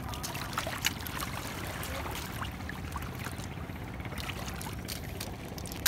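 Shallow seawater sloshing and splashing as hands reach into it to pick up clams, with scattered small splashes over a steady low rumble.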